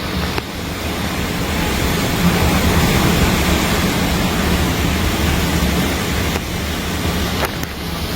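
Loud, steady rushing noise of a storm: wind and heavy water sweeping over the microphone, with a deep low rumble underneath.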